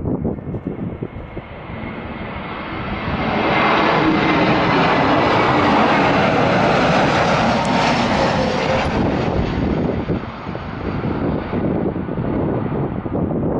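Jet airliner passing, its engine noise swelling to a peak about halfway through and then fading, with gusty wind buffeting the microphone.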